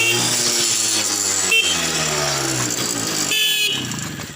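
Newly wired 6-volt electric horn on a TVS 50 moped sounding on test, a repeating pattern of falling tones heard twice: the wiring works.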